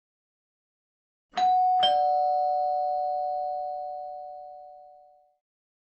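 Two-tone doorbell chime ringing a ding-dong: a higher note, then a lower one about half a second later, both ringing out slowly over a few seconds.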